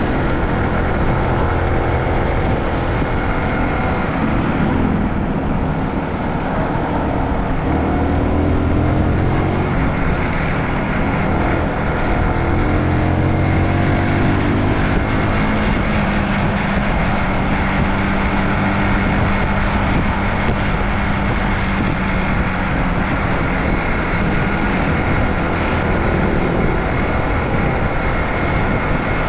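Honda CBR150 motorcycle's single-cylinder engine running under way, its pitch rising and falling in the first half and then holding steadier, with a heavy low rumble of road and wind noise.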